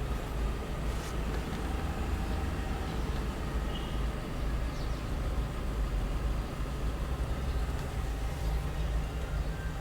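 Low, steady rumble of a car, with a faint hiss above it and no music.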